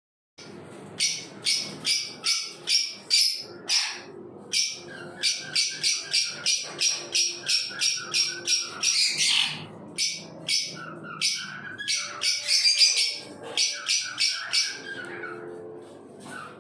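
Sun conure calling in a rapid series of short, shrill screeches, about three a second, with a brief break about four seconds in and a louder, busier stretch past the middle.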